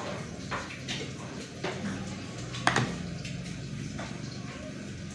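A few light taps and clicks of a plastic spoon against a plate while salt is spooned out, the loudest about two and a half seconds in, over a steady low hum.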